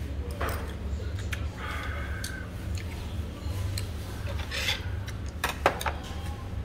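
Tableware clinking and knocking on a wooden table, a few light clicks with one sharp clink near the end, over a steady low hum.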